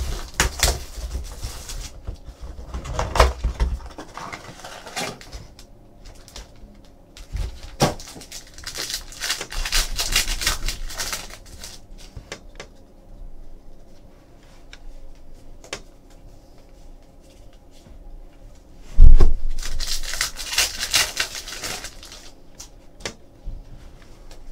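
A cardboard blaster box of trading cards being opened, and its foil card packs torn and rustled, in three bursts of crinkling. There is a single loud knock late on.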